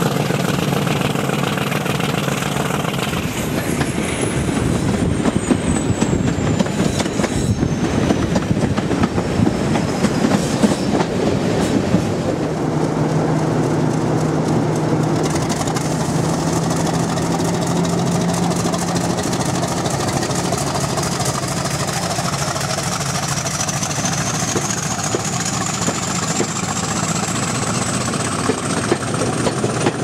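Class 50 diesel locomotives with English Electric 16-cylinder engines working hard under power, a loud, steady engine sound. Partway through, a Class 50 passes close by, followed by its coaches rolling past with wheel clickety-clack.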